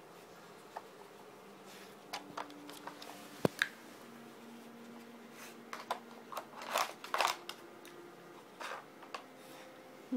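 Dog Brick interactive treat puzzle being worked by a dog: scattered clicks and knocks of its pieces, with one sharp knock about three and a half seconds in and a cluster of short noisy scrapes and bursts around seven seconds.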